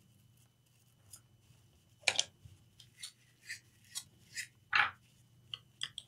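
Short, sharp cleaning strokes on the inside of a freshly soldered USB-C charging port, about two a second, starting about two seconds in.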